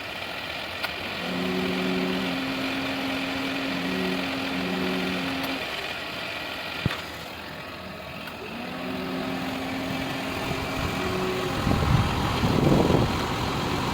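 Car engine running at idle, with a steady hum of a few fixed tones that comes on about a second in, stops midway, and comes back around nine seconds; a single sharp click partway through and a louder, rougher stretch near the end.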